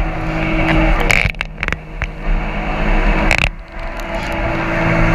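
MotoJet jet boat's engine running at speed under a rush of wind and water. Its steady note drops away about a second in and comes back strong near the end, with a few sharp knocks along the way.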